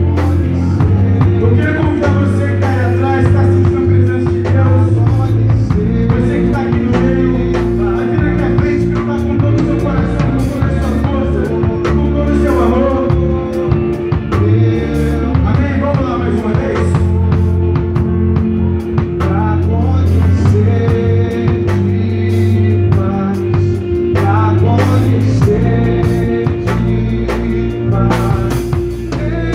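Live band music with singing: a drum kit played close to the microphone, with cymbal and drum hits over held chords and bass.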